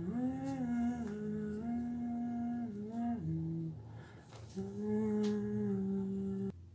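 A person humming a slow tune: several held notes joined by short glides, a brief pause after the middle, then a long note that stops abruptly near the end.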